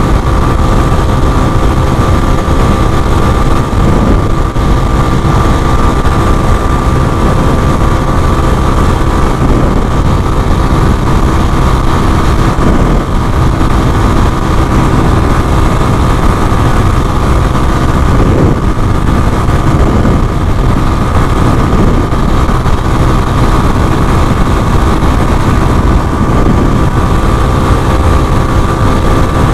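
A 150cc motorcycle engine running at a steady road speed, its note holding mostly even, under heavy wind rushing over an action camera mounted on the moving bike.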